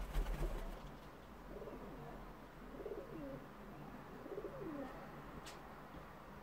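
A pigeon cooing low three times, each a short bending phrase. A loud bump at the very start, and a single sharp click near the end.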